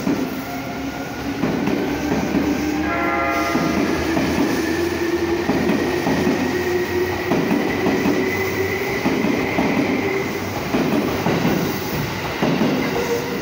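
Seibu 2000 series electric train accelerating past, its traction motors whining in a tone that slowly rises in pitch, with wheels knocking over rail joints every second or so. About three seconds in comes a brief whistle-like tone of about half a second.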